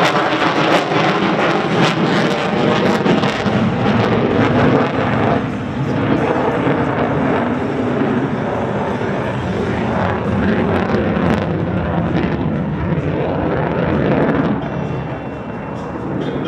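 Jet noise from an F-35B Lightning II's single Pratt & Whitney F135 afterburning turbofan as the fighter maneuvers overhead: a loud, rough, rushing noise that rises and falls, easing off briefly about five seconds in and dropping again near the end.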